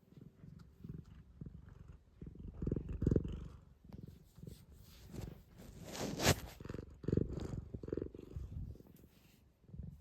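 Domestic cat purring close up, the low rumble swelling and fading in waves with each breath. One brief louder noise about six seconds in.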